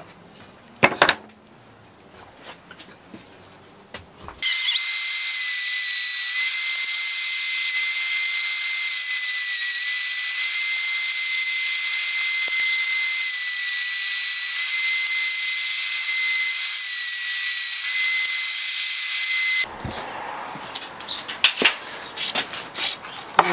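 Table-mounted wood router running at high speed with a steady high whine, dipping slightly in pitch a few times as a board is pushed across the bit to cut a 3/16-inch partition groove. It starts about four seconds in and cuts off suddenly about four seconds before the end, followed by a few light knocks of wood being handled.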